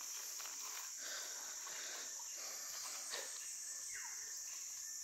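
A steady, high-pitched chorus of insects. A faint falling note about four seconds in.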